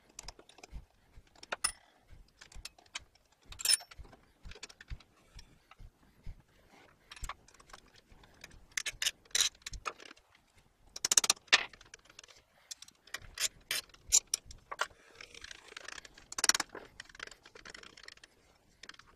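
Ratchet wrench clicking and steel parts clinking as a V-belt pulley is loosened and worked off an electric gear motor's shaft. Irregular sharp metallic clicks throughout, with louder clusters of clinks about halfway through and a short scraping rattle near the end.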